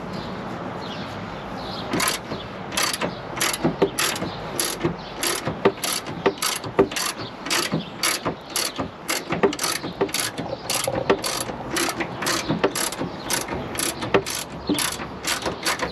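Socket ratchet clicking in a steady run, about two to three clicks a second, starting about two seconds in, as an 18 mm shock absorber mounting bolt on a Land Rover Discovery 2 is wound out after breaking loose.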